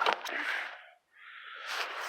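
A sharp click at the very start, then a little rustling and a faint hiss; the tractor's engine is not running.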